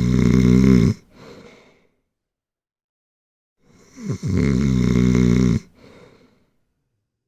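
Snoring: a loud snore that breaks off about a second in, followed by a fainter breath. After a short pause comes a second loud snore and fainter breath, the pattern repeating about every four and a half seconds.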